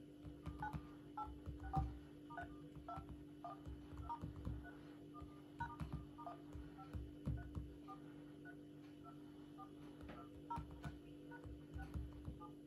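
Touch-tone (DTMF) keypad beeps from smartphones' in-call dial pads as digits are tapped in one after another: short beeps of varying pitch, irregular, a couple a second, with dull knocks of fingertips tapping the screens.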